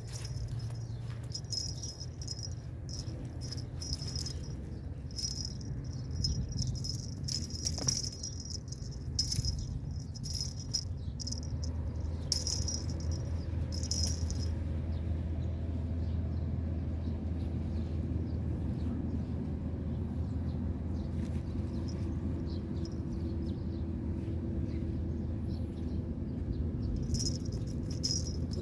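Insects trilling in repeated bursts at a high, fixed pitch, over a steady low hum and a few light clicks.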